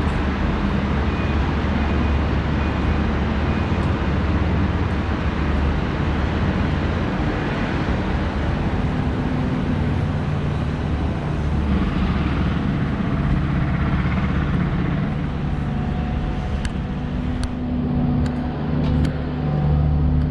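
Steady low engine rumble of heavy road-construction machinery and street traffic, with a few short clicks near the end.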